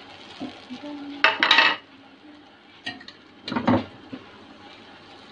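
A spatula scraping and knocking against the side of a metal pot while stirring minced beef frying in oil, in three bouts, the loudest about a second in. A low frying sizzle runs underneath.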